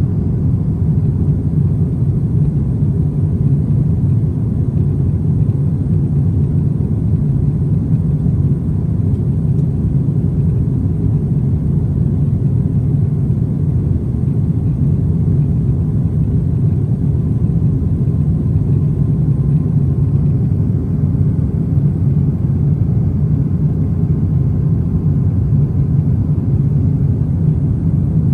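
Airliner cabin noise: the steady low rumble of the engines and airflow heard inside the cabin of a passenger jet.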